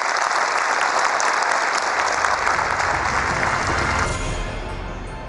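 Large audience applauding, which fades away about four seconds in. Low music comes in beneath it near the end.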